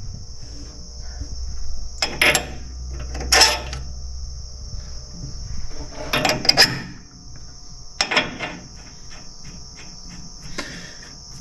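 Metal clinks and scrapes as steel spacers and a nut are fitted by hand onto the threaded side-head spindle of a Wood-Mizer moulder, in about five short bursts, over a steady high chirring of a cricket.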